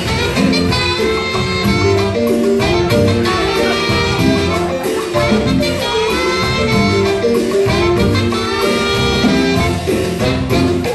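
Live Latin dance band playing an instrumental passage without vocals: two saxophones carry the melody over electric bass, drum kit and congas, with a keyboard.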